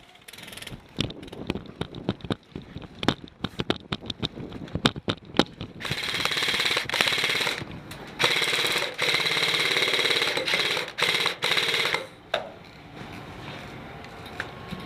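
Airsoft guns firing: scattered single shots, then two long full-auto bursts of rapid fire about six seconds in, the second running for about four seconds, and a few more shots near the end.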